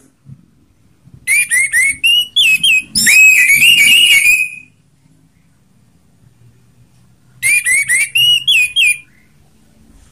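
Orange-headed thrush (anis merah) singing the loud, rapid whistled 'ngeplong' song. A burst of about three seconds starts about a second in, and a shorter burst of under two seconds follows near the end.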